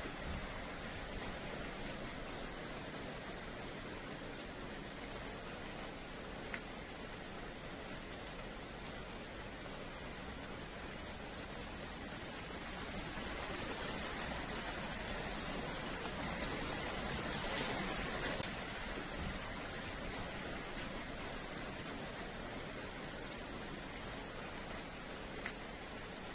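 Steady rain falling on wet paving, a constant hiss with scattered light drop ticks. It grows heavier about halfway through, peaks around two-thirds of the way in, then eases again.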